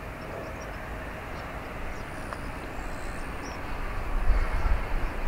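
Airbus A350-900 airliner taxiing: a steady run of engine and rolling noise, with uneven low rumbling thumps that build from about four seconds in.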